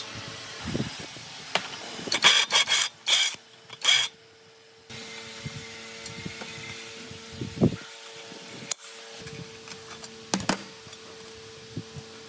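Hand tools working the rusted end cover of an old electric motor: a run of loud, rasping metal-on-metal scrapes about two to four seconds in, then scattered knocks and clicks. A steady hum runs underneath.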